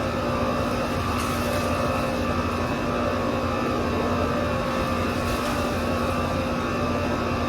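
Steady machine drone with a constant hum and no breaks.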